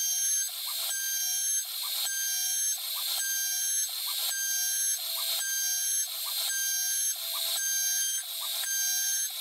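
An 800-watt CNC router spindle spins a carbide end mill through aluminium plate, giving a high-pitched machining whine and screech. The sound dips briefly about once a second as the cut goes on.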